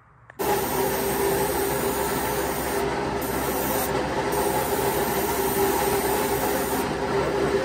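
A workshop machine starts suddenly and runs steadily: a loud, even hiss over a steady hum.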